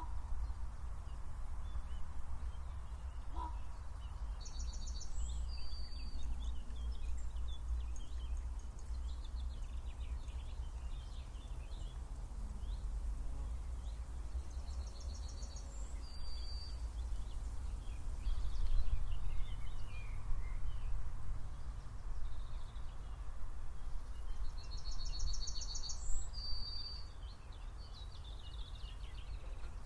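Songbird singing a short phrase of quick high notes ending on a lower note, three times about ten seconds apart, with other birds chirping faintly and a steady low rumble underneath.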